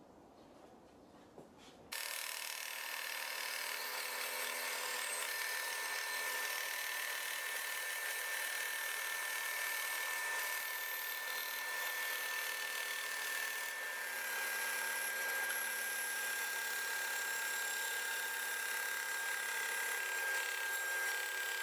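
Small bandsaw running and cutting a thin wooden spatula blank along a curved line: a steady sawing noise with a high whine. It starts abruptly about two seconds in.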